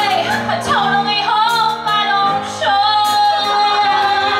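A woman singing into a handheld microphone over instrumental accompaniment, holding one long steady note for the last second and a half or so.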